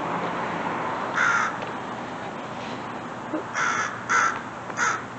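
American crows cawing: one caw about a second in, then three short caws in quick succession near the end.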